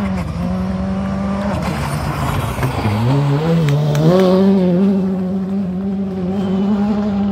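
Škoda Fabia Rally2 rally car's turbocharged four-cylinder engine running hard at high revs. About three seconds in the pitch dips and climbs in quick steps as the car takes the corner onto gravel, with a few sharp cracks. It then holds high and steady as the car accelerates away.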